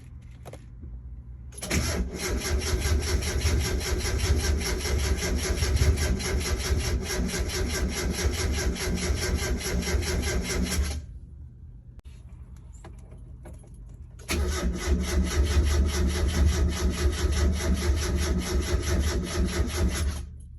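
Starter motor cranking a 1992 Mazda Miata's 1.6-litre four-cylinder engine in two long attempts, the first about nine seconds and the second about six, each cut off abruptly, with fast even pulses throughout and the engine not catching. This is the no-start fault that the owner traced to a detached engine ground cable.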